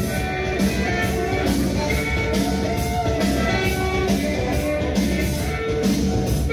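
Rock music with electric guitar and a steady beat, played loud over a party sound system.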